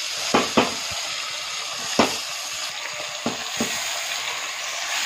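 Yogurt-marinated chicken sizzling as it fries in hot oil and ghee in a pressure cooker. A metal slotted spoon stirs it, clacking against the cooker's side about five times.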